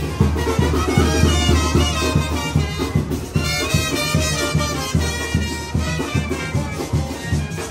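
Band music led by brass, loud, over a steady low beat.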